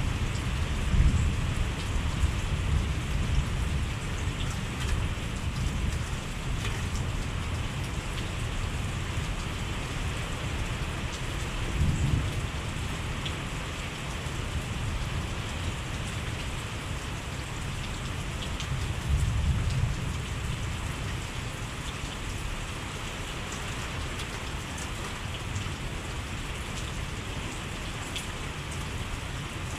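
Heavy thunderstorm rain falling steadily, with a constant hiss and patter of drops. Low rumbles swell up about a second in, at about twelve seconds and again at about nineteen seconds.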